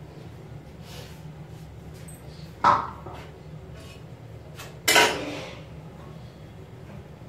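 Two sharp metallic clanks of kitchen utensils being handled at the stove, about two seconds apart, the second ringing on briefly, over a steady low hum.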